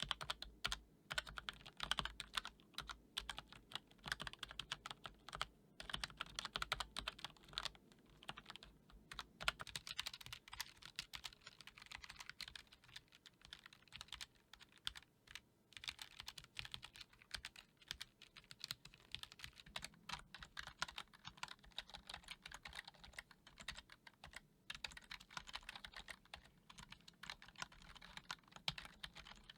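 Continuous typing on a computer keyboard: a dense, irregular clatter of keystrokes. A faint low hum beneath the typing stops abruptly about ten seconds in.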